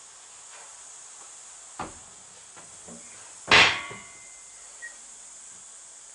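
Knocks and clicks from handling curtain fittings: a light click, then a sharp knock with a brief metallic ring about halfway through, then another small click.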